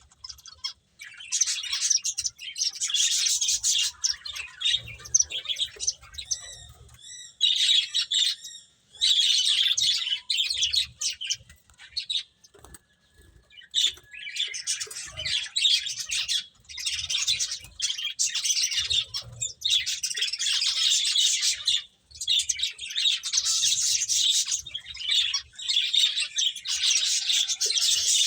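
Pet finches chirping, with many fast, high chirps in bursts of a few seconds and a short lull about halfway through.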